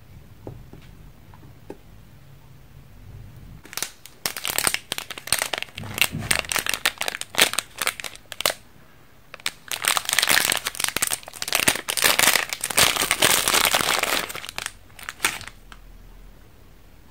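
Plastic candy-bar wrapper crinkling as it is handled and opened, in two long spells of rustling with a short pause between, after a few faint taps.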